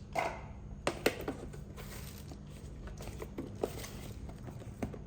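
Scattered light knocks, clicks and rustling as vegetables are handled and put into a storage box, the sharpest knock about a second in, over a faint steady hum.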